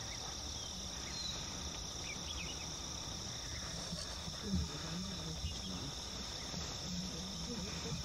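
A steady, high-pitched insect chorus drones on without a break.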